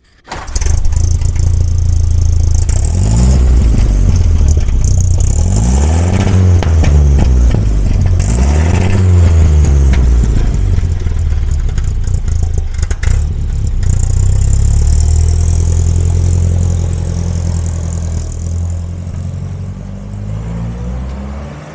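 1930 Ford Model A hot rod's 200.5-cubic-inch four-cylinder (four-banger) engine running loud through its exhaust. It is revved up and down several times in the first half. Later the car pulls away, and the sound fades as it drives off.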